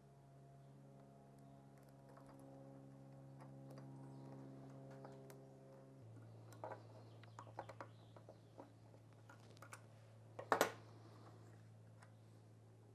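A zip tie being pulled tight around a Porsche 915 gearbox synchro ring to close up the ring, which springs open on its own. Scattered small clicks lead to one short, loud rasping zip about ten seconds in, over a steady low hum.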